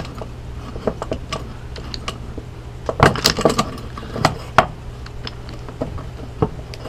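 Hand pop-rivet gun being squeezed repeatedly, giving sharp metallic clicks as its jaws grip and pull a 3/16 aluminium rivet's mandrel, spreading the rivet; the clicks bunch together about three seconds in and again a little later.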